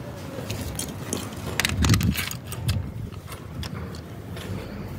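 Sharp metallic clicks and clinks as a pipe-flaring tool's bar and yoke are handled and fitted onto a copper refrigerant line, the loudest cluster about two seconds in.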